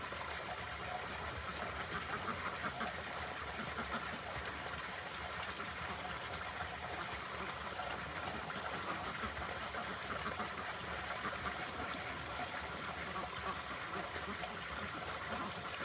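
A flock of domestic ducks quacking now and then over a steady background hiss.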